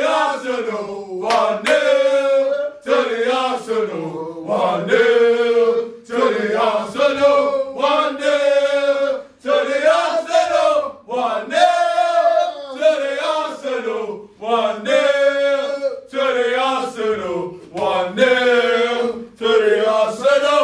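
A group of men chanting a football terrace chant together, a short sung phrase repeated over and over.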